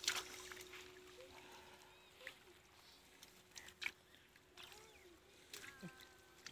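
Faint splashing and sloshing of pond water as a hand net is dragged through the shallows, with a few sharp splashes, the strongest just at the start. Faint chirps come in near the end.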